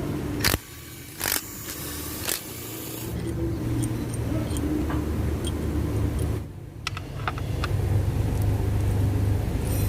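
An engine running steadily with a low hum, which drops out abruptly twice, with a few sharp metallic knocks from tools being used on the engine near the start.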